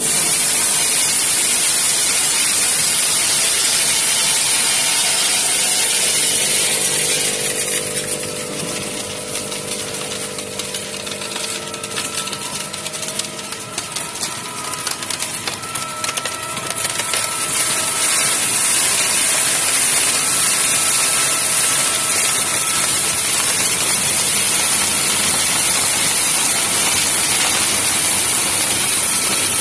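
Plastic optical colour sorter running: a loud, steady hiss of compressed air with plastic flakes rattling down its chutes. For a stretch in the middle the hiss drops a little and rapid sharp clicks stand out.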